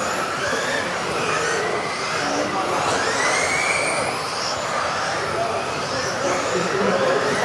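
Several electric RC off-road racing cars running at once, their motors whining in overlapping pitches that rise and fall as they accelerate and brake, over a steady hiss of tyres on the hall floor.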